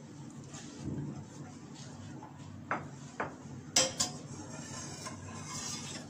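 A slotted spoon clinking against a steel saucepan and a glass bowl while boiled mango slices are lifted out of the water. There are four sharp knocks about three to four seconds in, the loudest near the end of them, over a steady low hum.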